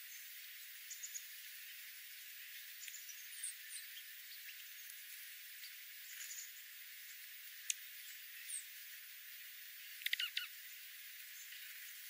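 Feeding flock of dark-eyed juncos and sparrows giving scattered short, high chip calls over a steady hiss, with a quick burst of louder chips and clicks near the end.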